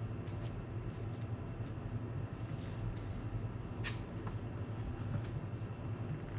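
Steady low electrical hum, with a few faint taps and one sharper click about four seconds in as cards are picked up and handled.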